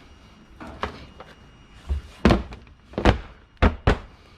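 A run of irregular thuds and knocks as tangled electrical cords are shoved and dropped into a bin, the heaviest knocks coming in the second half.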